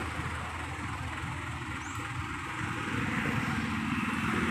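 Steady low rumble of a motor vehicle engine running, under a haze of roadside traffic noise.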